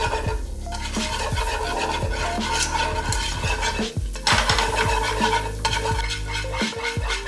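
Food sizzling in a frying pan as it is stirred, with background music playing over it.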